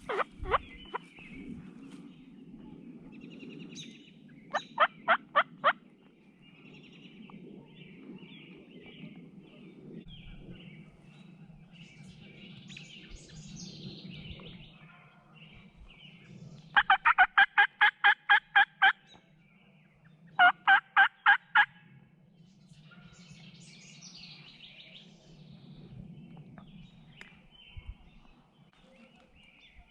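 Turkey yelping in three series of evenly spaced notes: about six, then a longer run of about a dozen, then about six more. Songbirds chirp faintly in the background.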